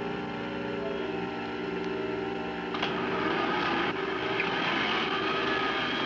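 Cartoon soundtrack: music with sustained held notes that shift about a second in, then a louder, noisier humming sound effect that comes in with a click a little under three seconds in.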